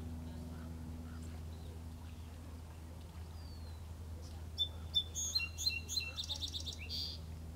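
A small songbird sings one phrase of high, clear notes that runs into a fast trill, starting a little past the middle and lasting about two and a half seconds. Fainter chirps come before it, and a steady low hum runs underneath.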